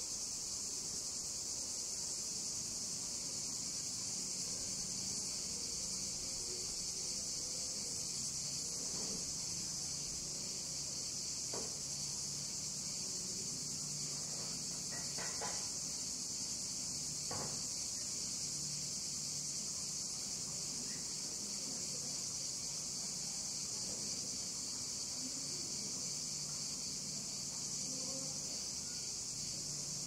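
Steady high-pitched chorus of cicadas in summer heat, unbroken throughout, over a faint low hum, with a few brief soft knocks around the middle.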